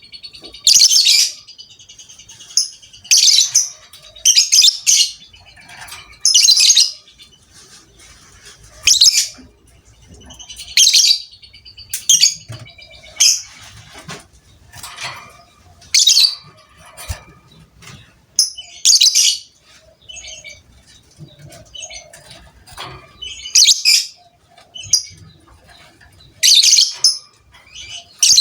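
Lovebird giving short, shrill, chattering calls, each about half a second long and repeated every one to two seconds, with softer chirps in between.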